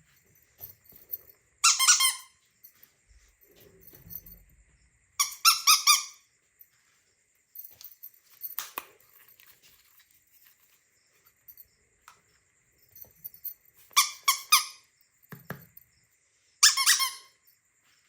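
A squeaky toy squeezed over and over: four loud, high-pitched squeaks of about half a second each, with fainter squeaks and small handling clicks in between.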